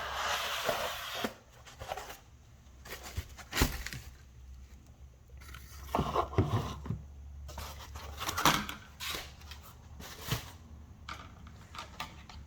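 Unboxing sounds: packaging rustles briefly at the start, then scattered knocks and rustles as printer parts are handled and set down, over a low steady hum.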